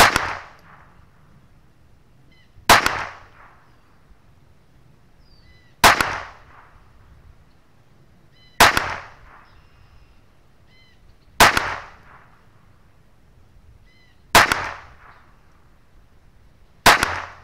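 Taurus TX22 Competition pistol firing Wolf Match Target .22LR: seven single shots, one every two and a half to three seconds, each a sharp report with a short fading tail. The rounds leave its 5.25-inch barrel at subsonic speed.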